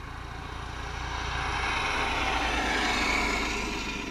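Helicopter flying past, its sound swelling to a peak about three seconds in and then fading.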